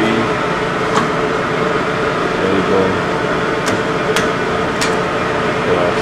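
LeBlond Regal 15C gear-head engine lathe running with a steady mechanical hum, broken by several sharp clicks as levers on the carriage apron are worked, three of them in quick succession past the middle.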